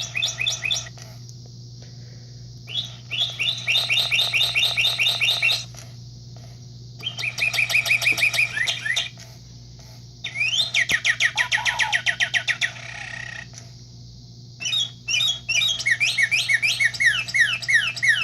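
Gemmy Singing Christmas Cardinal animatronic toy in chirping mode, playing recorded bird chirps through its small speaker. The chirps come in about five bursts of rapid repeated notes with short pauses between, and the last run is a string of falling chirps.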